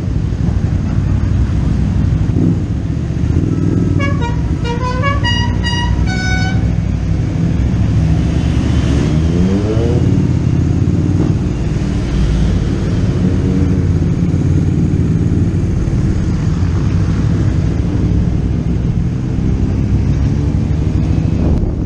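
Motorcycle engine running steadily on the road, with wind rush over the microphone. A string of short horn toots sounds from about four to six and a half seconds in, and an engine's pitch rises briefly near ten seconds.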